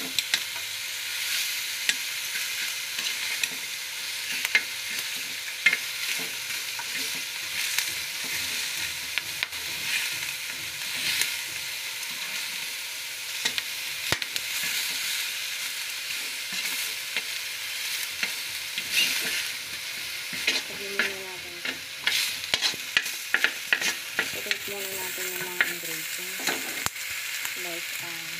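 Pork belly pieces frying in a pan, a steady sizzle, with tongs clicking and scraping against the metal as the meat is turned. The clicks come thicker in the last third.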